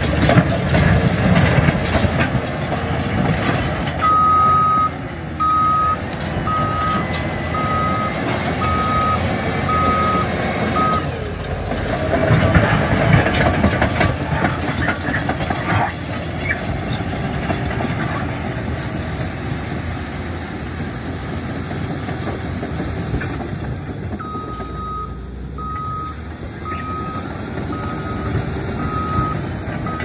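Cat D5 bulldozer's diesel engine running and its tracks clattering as it moves on loose gravel. Its reverse alarm beeps steadily, about one and a half beeps a second, from about four seconds in to about eleven seconds, then starts again near the end.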